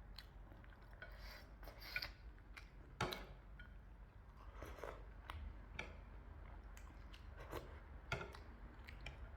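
Eating utensils clicking and scraping against a plate, in short separate touches about once a second or so, with soft eating sounds between.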